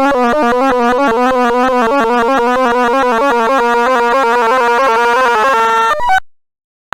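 Sound of Sorting program's synthesized tones: a rapid stream of short electronic beeps jumping up and down in pitch, each pitch standing for the value of an array element being accessed as a random sort shuffles the array. The beeps cut off abruptly about six seconds in, leaving silence.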